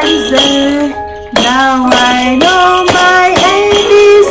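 A sung melody of held notes accompanied by the metal jingle bells on a toy drum's tambourine lid being shaken and tapped. The music breaks off briefly about a second in, then resumes.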